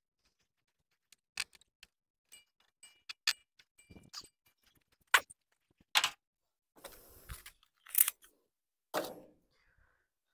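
Irregular sharp clicks, knocks and short rustles of hands at work: plastic cord being pulled tight to fasten a lid onto a steel-mesh IBC cage of firewood.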